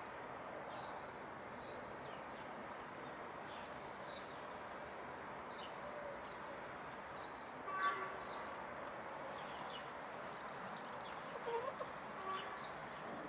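Small wild birds chirping repeatedly in short, high notes over a steady outdoor hiss, with hens calling now and then, the loudest a short call about eight seconds in and a few softer clucks near the end.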